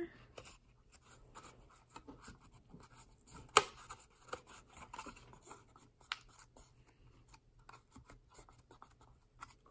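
Thin plastic candy-kit mould tray handled in the fingers while dough is pressed into a donut mould: faint rubbing and crackling of the plastic, with one sharp click about three and a half seconds in.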